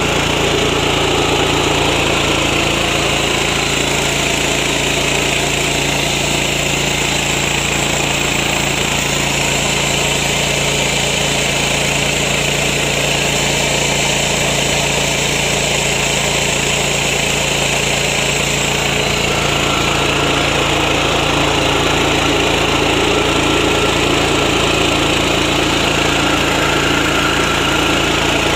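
Small single-cylinder petrol engine (MGX 210, 7–7.5 HP) running steadily as it drives a mini rice-milling machine. Its tone shifts slightly about two-thirds of the way through.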